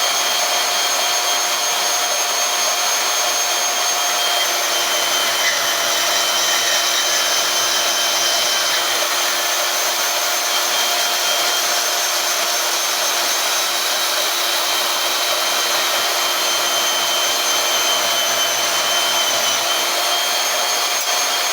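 Harbor Freight portable band saw running steadily under load as it cuts through metal channel, a constant even whine.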